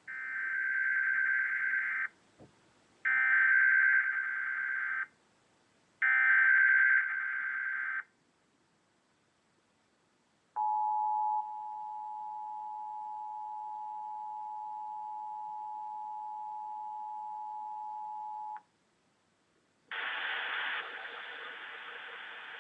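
Emergency Alert System header: three bursts of warbling SAME digital data, each about two seconds long, then the steady two-tone EAS attention signal for about eight seconds, announcing a test tornado warning. About twenty seconds in, a hissing noise starts up.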